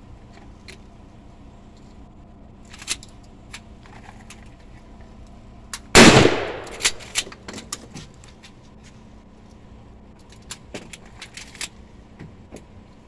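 A single shotgun blast about six seconds in, with a trailing echo, followed by a few sharp clicks and knocks; scattered quieter clicks come earlier and near the end.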